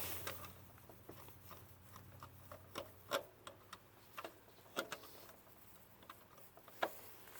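Scattered, irregular light clicks and taps, like hands working a small switch and handling things, with no furnace fan running.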